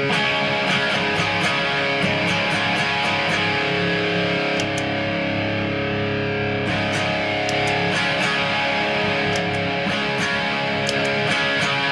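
Electric guitar (Epiphone Les Paul) played through a Marshall JCM 2000 TSL 60 amp on its overdriven lead channel with the solo boost engaged, playing steadily without a break.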